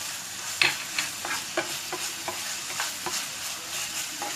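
Chicken mince and chopped vegetables with green chillies sizzling steadily in a pan while being stirred, the stirring utensil scraping and clicking against the pan about three times a second.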